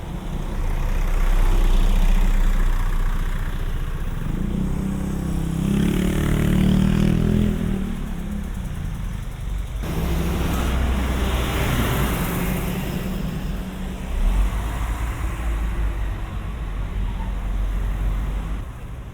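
Street traffic with a low, steady rumble; a motor vehicle drives close past around the middle, its engine note rising and then fading. The sound changes abruptly about ten seconds in.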